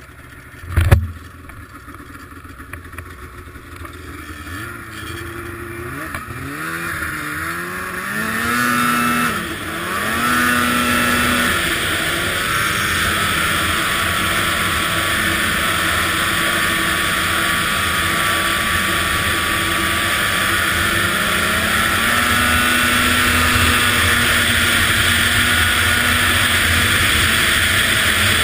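A sharp thump about a second in, then an Arctic Cat ZR 800 snowmobile's two-stroke engine revs up in several rising pulls and settles into steady high-speed running, with rushing noise growing slowly louder.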